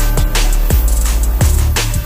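Background music with a drum beat over a deep, steady bass; some of the low drum hits drop in pitch.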